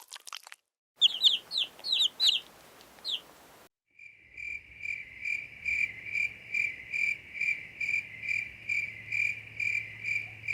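A few high, falling peeps like a chick's, then after a short pause a cricket starts chirping steadily, close to three chirps a second.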